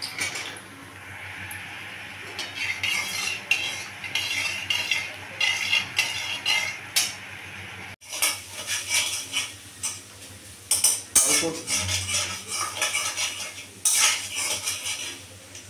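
A spoon scraping and knocking against a metal kadai as sliced onions are stirred in hot oil, in quick irregular clatters over a low sizzle.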